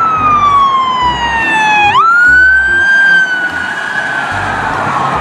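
Police car siren wailing. The pitch sweeps slowly down for about two seconds, then jumps sharply back up and climbs slowly to hold high.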